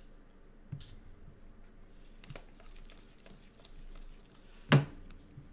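A stack of 2020 Mosaic football cards being flipped through one by one in gloved hands: soft sliding and light clicks of card against card, with one sharp knock about three-quarters of the way in.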